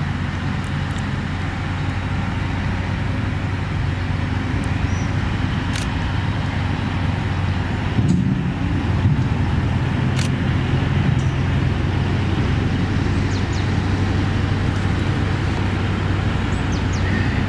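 The two-stroke V12 diesel engine of an M62 freight locomotive running with a steady low drone. The drone grows louder about eight seconds in as the locomotive comes slowly closer.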